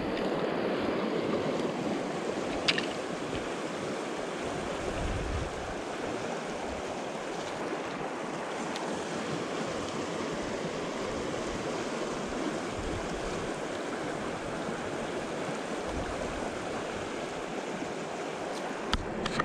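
Steady rush of river water flowing, an even unbroken noise, with one faint click a little under three seconds in.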